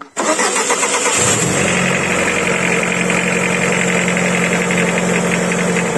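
Lada Granta Sport petrol engine starting and settling into a steady idle, with a light, fast ticking over the running. The tick is the hydraulic valve lifters (lash adjusters) knocking on start-up.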